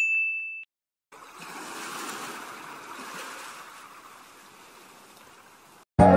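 Intro sound effects: a short bright chime as the subscribe bell is clicked, then a long airy whoosh that swells and slowly fades over about five seconds. Guitar music starts just before the end.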